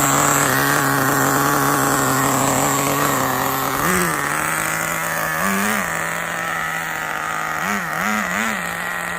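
HSP nitro RC car's small two-stroke glow engine running at a steady idle, blipped up in pitch by the throttle about four seconds in, again a moment later, and three times in quick succession near the end.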